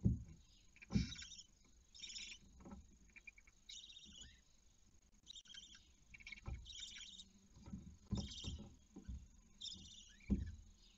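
Barn owl chicks giving short rasping hisses, the begging call of owlets, repeated about once every second or so. Dull knocks and thumps from birds moving against the wooden nest box, the loudest near the start, about a second in and near the end.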